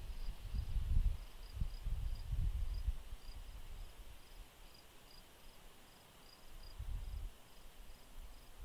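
Crickets chirping outdoors at dusk: short, high chirps repeating a few times a second over a faint steady insect hiss. Low rumbling comes and goes underneath, loudest about a second in and again near the end.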